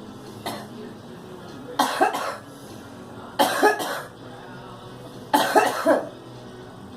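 A girl coughing: three short fits about a second and a half apart, each of two or three quick coughs, after a faint cough just after the start.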